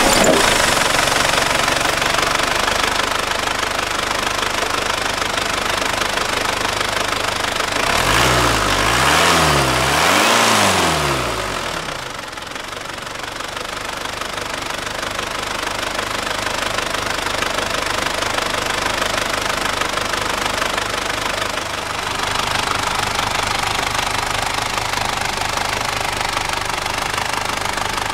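Mitsubishi 4M40 2.8-litre four-cylinder turbodiesel idling with a steady diesel knock. It is revved twice in quick succession about eight seconds in, then settles back to idle.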